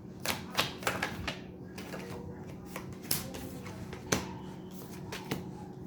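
Tarot cards being handled and laid on a table: a quick run of card clicks and snaps, then a few single taps, over a faint steady hum.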